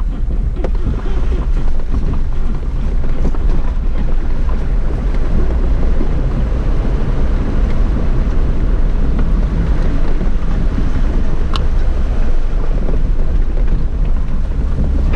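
Steady rumble of wind buffeting a microphone mounted on a Jeep's hood, with the Jeep's engine running underneath as it crawls along an off-road trail.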